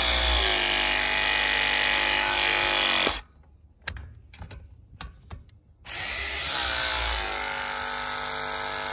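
Ridgid battery press tool with MegaPress jaws crimping fittings onto black iron gas pipe. Its motor whines with a pitch that drops as the jaws close on the fitting, and stops about three seconds in. After a few clicks, a second press cycle starts about six seconds in and runs almost to the end.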